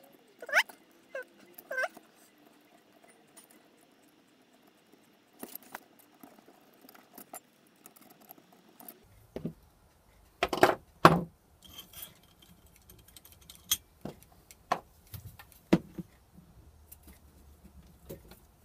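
Aluminium servo brackets and small metal hardware clinking and knocking as they are handled and set down on a cutting mat, with the loudest knocks about ten to eleven seconds in.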